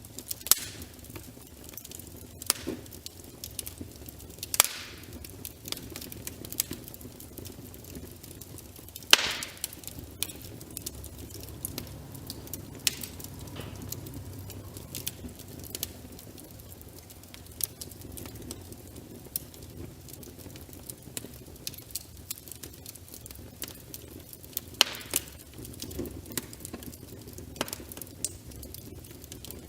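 Wood fire crackling, with sharp pops at irregular intervals over a low steady rumble. The loudest pop comes about nine seconds in.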